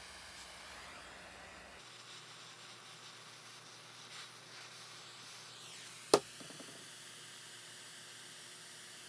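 Steady hiss with one sharp, loud click about six seconds in, followed briefly by a few faint ticks.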